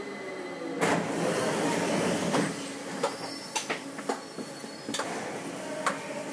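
Uijeongbu light rail car running on its elevated guideway, heard from on board: a steady low whine, a loud rush of noise about a second in that lasts about a second and a half, then a series of sharp, irregular knocks.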